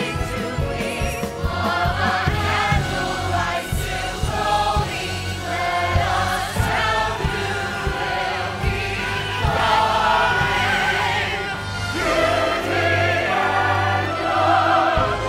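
Musical theatre song: voices singing over instrumental accompaniment.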